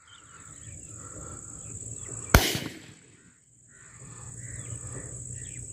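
A single shotgun shot fired at a dove in flight, sharp and followed by a short echo, about two and a half seconds in. A faint steady insect chirring and scattered bird calls run beneath it.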